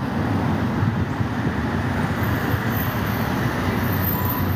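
Steady road traffic noise from vehicles on a city street, a dense rumble and hiss that swells up at the start and then holds level.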